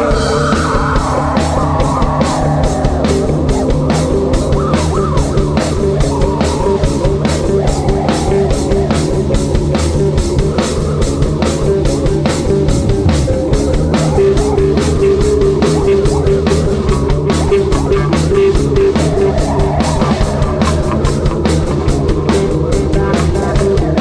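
Loud rock music with guitar and drum kit, playing a steady, dense beat.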